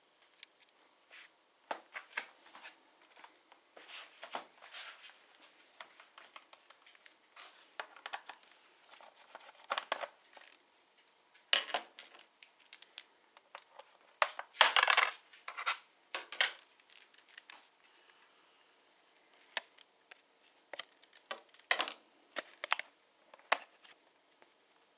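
Irregular small clicks, taps and scrapes of hand tools and plastic parts while opening a laptop's case. There is a louder run of clicks about halfway through.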